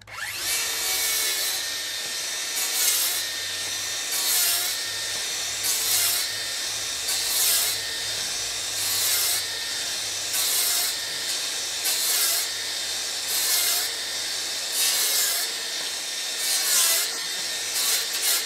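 DeWalt FlexVolt cordless circular saw spinning up and then ripping lengthwise through a long board, the cutting noise swelling and easing about every one and a half seconds as the blade is pushed through the wood.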